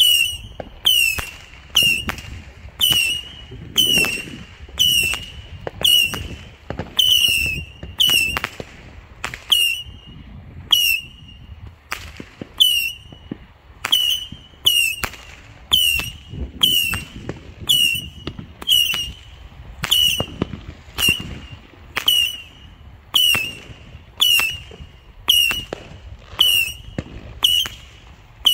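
A 100-shot Saturn missile battery firing in a steady run of shots, a little more than one a second. Each small rocket leaves with a short whistle and a sharp crack.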